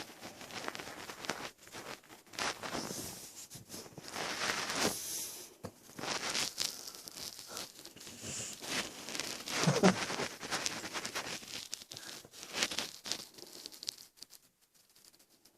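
Close, irregular rustling and crinkling handling noise in uneven bursts, fading away near the end.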